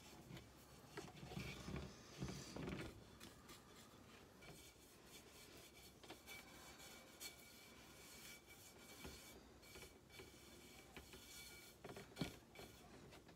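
Faint soft rubbing of a paintbrush working wax over a decoupaged tray, with a few light ticks and taps scattered through; overall near silence.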